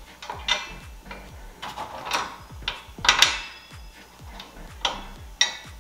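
Metal bolts and washers clicking and clinking against the hoop's metal rim bracket and the backboard as they are fitted through the mounting holes: a string of sharp, light clicks at irregular intervals.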